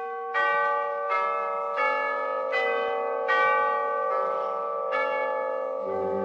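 Musical bridge of tuned bells struck one note at a time, about every three-quarters of a second, each ringing on under the next to form a slow melody. A low held note comes in near the end.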